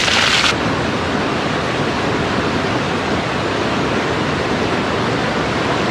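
Fast-flowing mountain water rushing steadily, a loud, even wash of water noise. The higher hiss drops away suddenly about half a second in.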